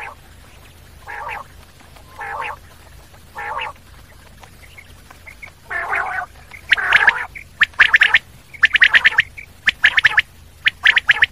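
Common quail calling: four soft, lower calls about a second apart, then from about six seconds in a string of loud, sharp, rapidly repeated call phrases.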